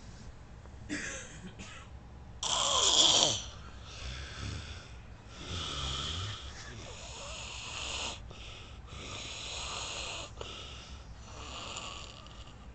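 A man snoring in his sleep: one loud snore with a falling pitch about two and a half seconds in, then a run of quieter snoring breaths at a steady pace, one every couple of seconds.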